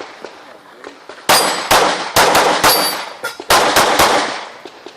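A string of pistol shots fired in quick pairs, about ten in all over a few seconds, with a brief metallic ring after some of them as steel targets are hit.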